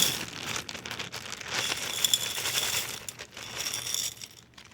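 Small gravel-like decorative rocks poured from a plastic bag into a little dish, the pebbles clattering and clinking irregularly amid the crinkle of the bag, thinning out near the end.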